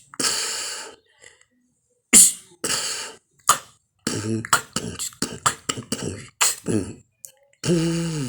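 Beatboxing: a person making drum beats with the mouth, sharp clicks and hissing bursts. They come sparsely at first, then in a fast run from about four seconds in, with a hummed pitched tone near the end.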